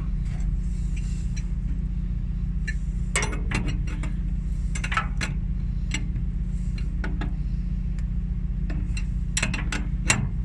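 Steel wrenches clinking against a hydraulic fitting in several short bursts as an inline reducer is tightened into the cylinder port. A steady low hum runs underneath.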